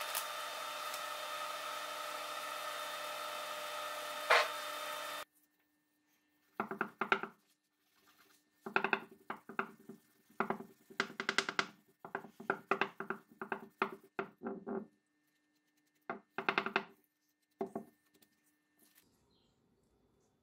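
Steady hum and whine of an induction hob heating a pot of water, with one sharp click, cutting off abruptly about five seconds in. Then come a series of short knocks and scrapes as the pepperbox's metal barrel and parts are handled on paper towels over a wooden bench.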